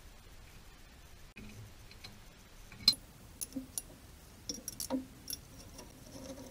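Hand tools and bolts clicking and clinking against an aluminium chassis bracket as it is bolted up under the car. It is quiet at first; a sharp click comes about three seconds in, followed by a scatter of lighter clicks.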